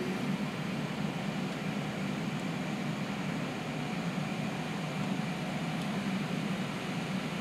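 Steady whir of fans: the Ender 3 3D printer's cooling fans together with a ceiling fan and room air conditioner. The printer's stepper motors, though the bed and head are moving mid-print, are too quiet to stand out.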